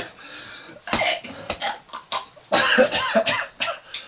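A man coughing in a fit: a couple of single coughs about a second in, then a longer, louder run of coughs near the end.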